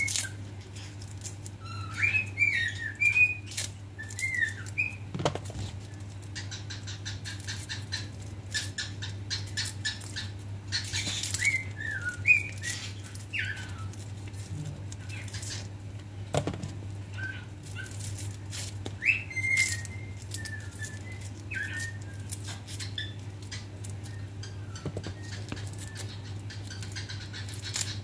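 Pet birds whistling short calls that glide up and down, again and again, with sharp clicks and flutters in between, over a steady low hum.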